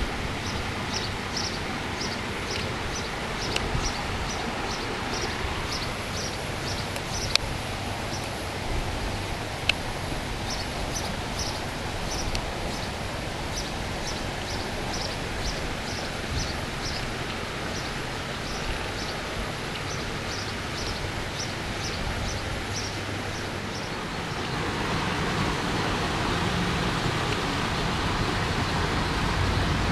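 Steady outdoor rushing background noise with a short high chirp repeating about twice a second for most of the stretch, and a couple of sharp clicks; the rushing grows louder near the end.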